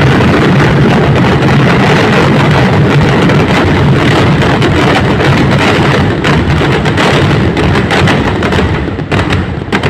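Massed festival fireworks barrage: a dense, continuous rumble of bursts with crackling throughout. From about six seconds in, the blasts thin into more distinct sharp cracks.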